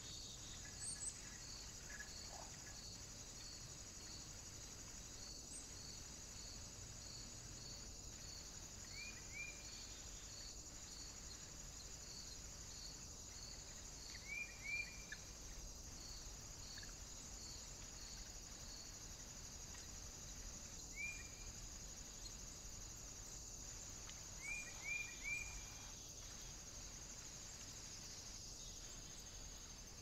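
Faint outdoor insect chorus: a steady high chirring, with a cricket-like pulse about twice a second through the first half. Over it come a few short, high bird chirps, singly or in quick runs of two or three, which are the loudest sounds.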